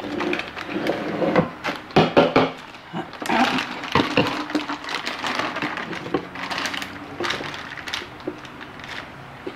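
Kitchen handling clatter: plastic containers knocked about and set down on a stone counter, several sharp knocks in the first few seconds, with rustling in between.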